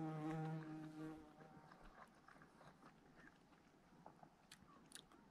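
A flying insect buzzing close by, steady in pitch, which fades out about a second in. After it come faint clicks of a fork in a food tray and chewing.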